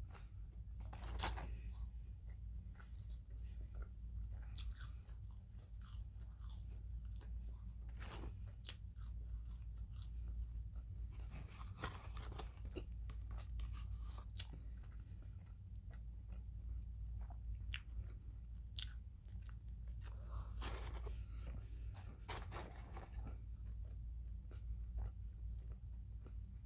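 A person chewing and biting into a burger and French fries close to the microphone: irregular wet mouth clicks, smacks and soft crunches, over a steady low hum.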